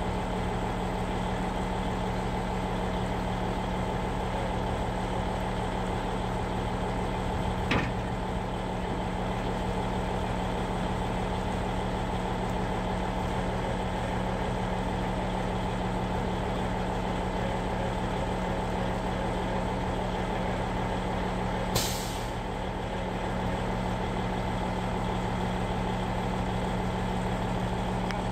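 A heavy engine idling steadily with a low, even hum, with a single click about 8 s in and a short sharp hiss of released air or steam about 22 s in.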